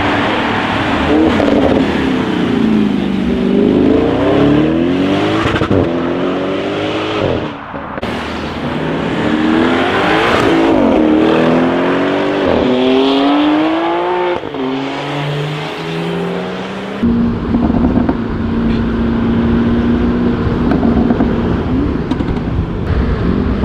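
Tuned Audi RS6 Performance twin-turbo V8 with an aftermarket Akrapovic exhaust, revving hard through repeated accelerations. Its pitch climbs and drops back again and again, with a few sharp exhaust cracks. From about two-thirds of the way in, the engine holds a steadier, lower note.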